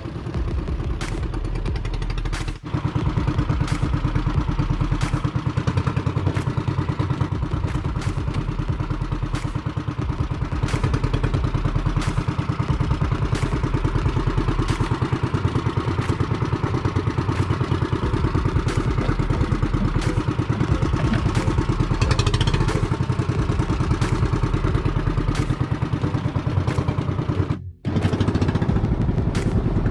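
The small engine of a motorized outrigger boat (bangka) running steadily with a fast, even beat. The sound drops out briefly about two and a half seconds in and again near the end.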